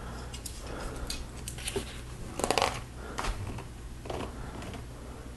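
Plastic Lego bricks clicking and rattling as a small built model is handled in the hands, with a quick run of louder clicks about halfway through, over a steady low hum.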